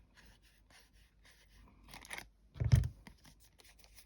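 Hands handling card and a crafting tool: light rustling and small clicks, with one solid thump a little over halfway through.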